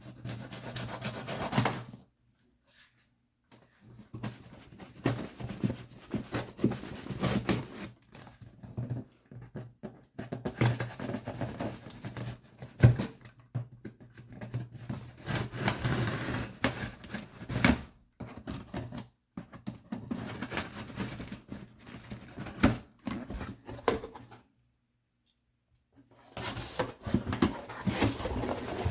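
Cardboard box and packaging being opened and handled: irregular rubbing, scraping and sliding with occasional light knocks, pausing briefly a couple of times.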